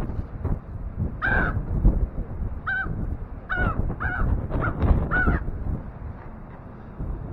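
Crows cawing: about six short caws in the first few seconds, then a lull, over a low rumble of wind on the microphone.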